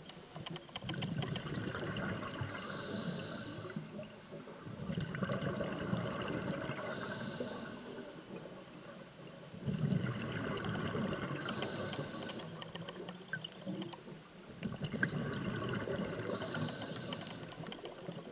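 Scuba diver breathing through a regulator, recorded underwater through the camera housing. Four breaths come about four and a half seconds apart. Each is a low bubbling rumble of exhaled air, then a short, high hiss of air drawn through the regulator.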